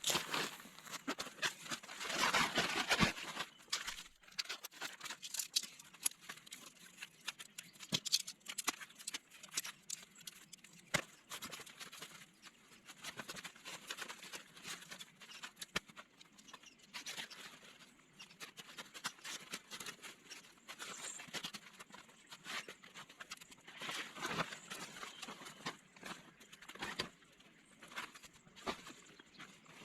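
Tent being pitched, played sped up: rustling of tent fabric with many irregular clicks and knocks from poles and pegs being handled.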